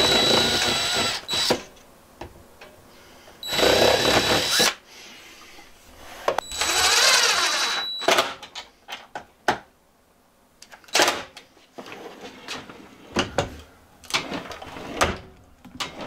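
Cordless DeWalt drill running in three short bursts of a second or two each, with a steady high whine, drilling pilot holes into a plywood drawer. After that come scattered short knocks and clicks from handling the drawer.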